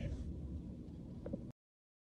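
Faint room tone from a narration recording, a low hiss with a tiny blip, cutting off to dead digital silence about one and a half seconds in.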